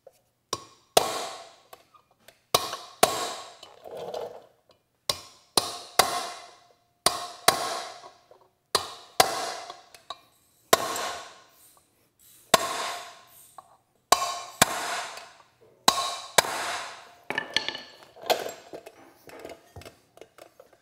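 Hammer blows on a steel punch driving a new press-fit lug stud into a brake drum hub: about twenty sharp metallic strikes, often in quick pairs, each ringing briefly.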